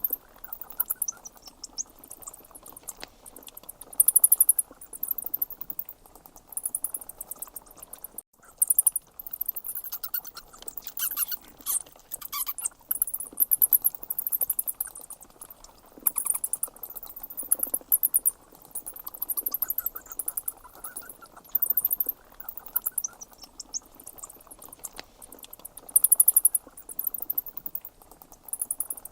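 High, very rapid bird trills repeated in short bursts every second or two over a faint steady hiss, with a brief break about eight seconds in.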